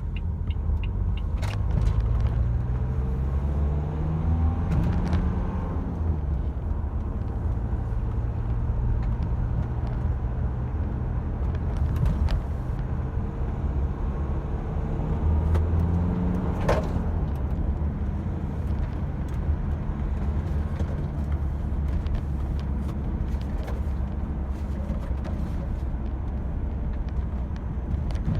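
Renault Espace IV engine heard from inside the cabin while cold, running steadily, its note rising and falling back twice. A few sharp clicks stand out, the loudest just after the second rise.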